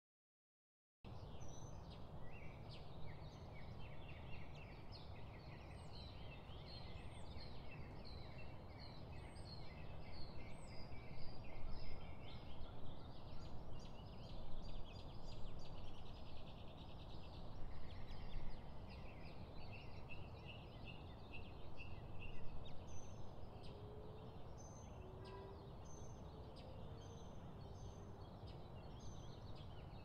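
Wild birds calling, many overlapping chirps and trills, over a steady low rumble. The sound starts suddenly about a second in. The calls grow louder through the middle, and thin to a few repeated short high whistles near the end.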